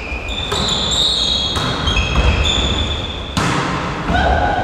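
Volleyball game in a large gym hall: several sharp slaps of the ball being struck, mixed with players' steps on the floor.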